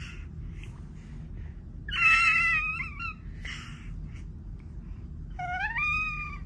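A five-month-old baby's high-pitched squeals: a loud one about two seconds in, then a second squeal near the end that rises in pitch, with soft breathy sounds between.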